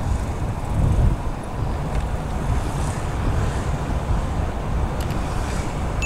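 A moving motorcycle heard from its own mounted camera: wind buffeting the microphone over a steady low rumble of engine and road noise.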